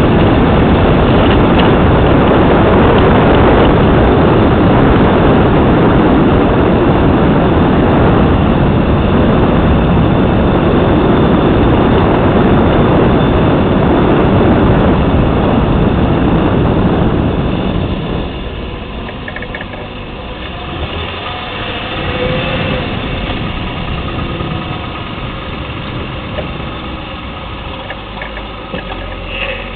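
2010 Lexus LS 460L on the move: loud, steady road noise that drops sharply about 17 seconds in, as if the car slows, leaving a quieter steady running sound.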